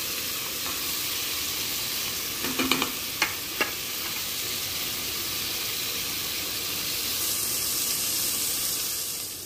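Chicken pieces with tomato and onion sizzling steadily in hot oil in an aluminium pot as they are stirred with a wooden spoon. A few short knocks about three seconds in.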